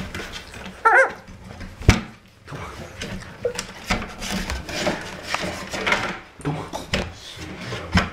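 Four-week-old puppies scuffling at play, with a short wavering whine about a second in and small yips and grunts after it. Several sharp knocks are mixed in.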